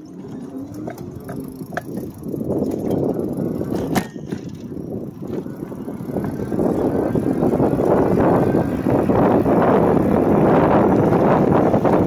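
Wind buffeting the microphone of a moving e-bike, mixed with tyre noise on pavement. It grows louder over the first several seconds and then holds steady. There is a single sharp knock about four seconds in.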